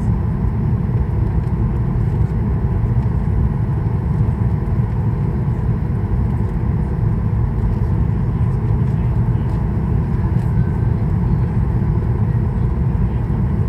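Cabin noise of a Boeing 737-800 on final approach with flaps out: a steady low rumble of airflow and its CFM56-7B engines, with a faint steady high tone over it.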